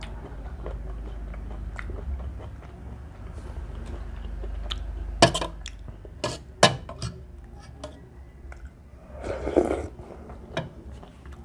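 A person chewing a mouthful of instant cheese ramen. A little past the middle a spoon clicks sharply against the ceramic bowl a few times while scooping up the last bits. Near the end there is a short, louder slurp as the spoonful goes to the mouth.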